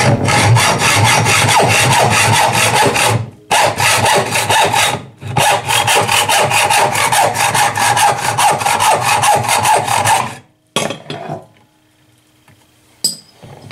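Hacksaw cutting through a brass rifle cartridge case held in a bench vise: quick back-and-forth rasping strokes in three runs with two short breaks, stopping about ten seconds in. A few light handling knocks and a sharp click follow near the end.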